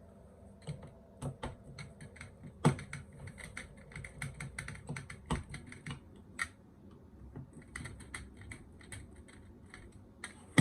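Screwdriver driving screws to fix a fire alarm heat detector base in place: irregular small clicks and scrapes, with a few louder knocks.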